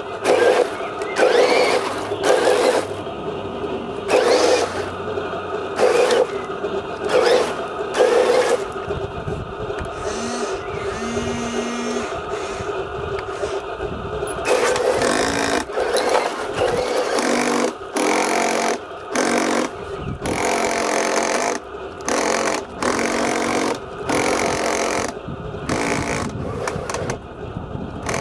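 Radio-controlled toy tanks running, their small electric drive motors and cheap plastic-geared gearboxes whirring in repeated short start-stop bursts as the tracks move over gravel.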